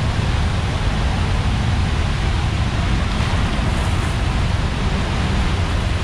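The Rhine Falls' whitewater crashing and rushing close up: a loud, unbroken roar with a heavy low rumble.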